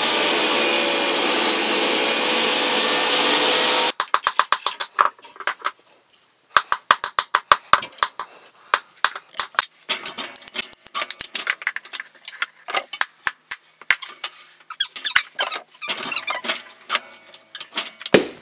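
A loud, steady rushing noise that cuts off abruptly about four seconds in. Then a long run of irregular sharp clicks and knocks, some in quick runs, from wooden strainer bars being handled and cut on a framing mitre guillotine.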